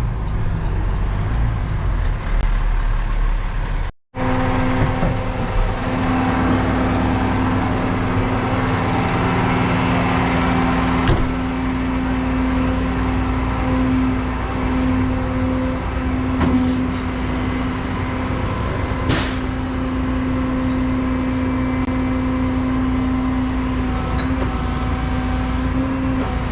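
Heavy diesel truck engine running steadily. The sound cuts out for an instant about four seconds in, then comes back as a steady droning engine hum, with one brief high hiss about two-thirds of the way through.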